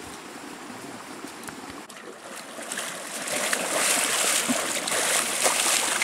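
Water splashing and sloshing as people wade quickly through shallow pond water, starting about halfway in and louder from then on.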